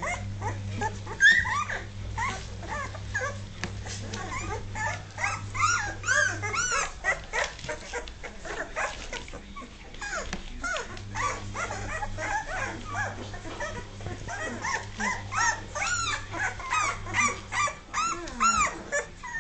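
A litter of two-and-a-half-week-old Dogue de Bordeaux puppies whimpering and squeaking, many short high whines overlapping one after another, with a steady low hum that drops out for a few seconds in the middle.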